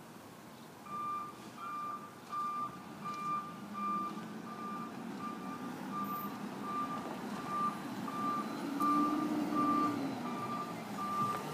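Garbage truck's reversing alarm beeping at one steady pitch, about three beeps every two seconds, starting about a second in: the truck is backing up. Its engine runs underneath and swells near the end.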